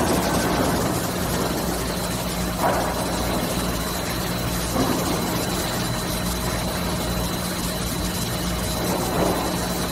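Lumber dip-treatment line machinery running steadily, a constant hum with a thin high whine over it, and three brief louder noises spread through it.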